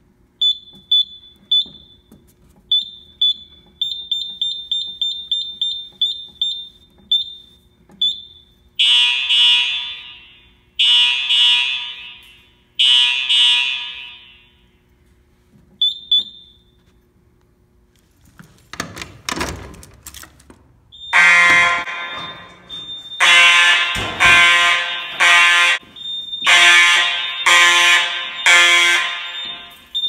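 Fire alarm control panel keypad beeping with short high beeps as keys are pressed, then fire alarm horns sounding in repeated blasts: three at first, then louder pulses from about two-thirds of the way in.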